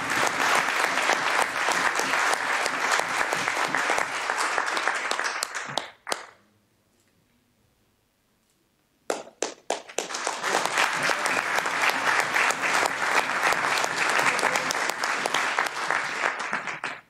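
Audience applauding in two spells, with a gap of near silence about three seconds long in the middle.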